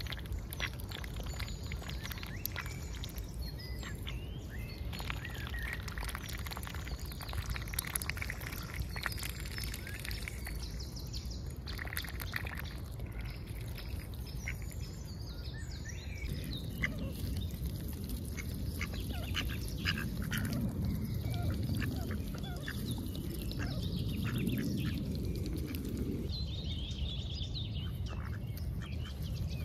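Mallard ducks feeding close by: quiet quacks and the rapid clicking of bills dabbling in puddle water. In the second half there is a low rustling as they forage in the grass.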